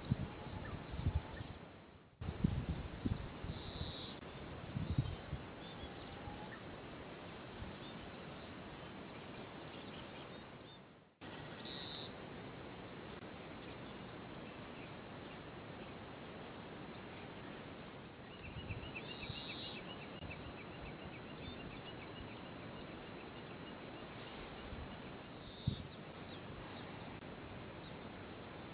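Outdoor marshland ambience: birds give short high calls every several seconds, with a rapid trill of repeated notes about two-thirds of the way through, over a steady background hiss and a thin high tone. Wind buffets the microphone with low bumps in the first few seconds, and the sound drops out briefly twice.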